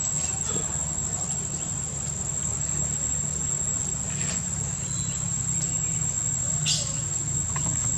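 Steady high-pitched drone of insects over a low steady hum, with a brief sharp click about seven seconds in.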